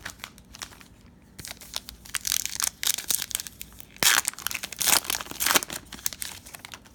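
Plastic trading-card pack wrapper being torn open and crinkled in the hands, with irregular crackles and the loudest rips between about four and five and a half seconds in.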